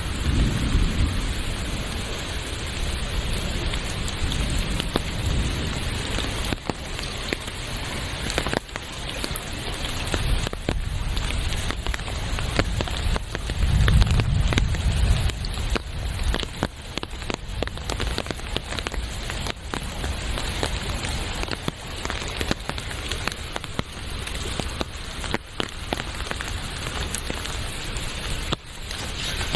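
Steady rain falling, with many separate drops pattering on surfaces. A low rumble swells near the start and again, loudest, about halfway through.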